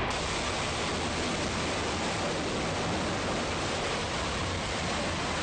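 Steady, even rushing noise of an F-35B's jet engine and lift fan during a hovering vertical landing, unchanging in loudness.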